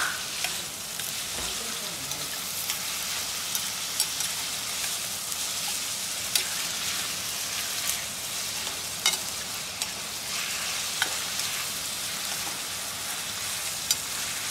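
Raw chicken pieces sizzling in oil in a stainless steel frying pan with dried red chillies and onion, stirred with a metal spoon that clicks and scrapes against the pan now and then.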